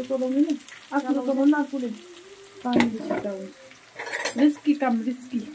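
Metal spoon stirring and scraping in cooking pots, giving several short pitched scrapes. Oil sizzles more strongly near the end.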